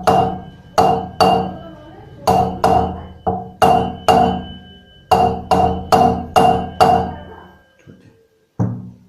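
Hammer blows on metal, a dozen or so in an uneven rhythm, each one ringing briefly, driving a new front wheel bearing into a motorcycle's wheel hub. The blows stop briefly near the end, then two more follow.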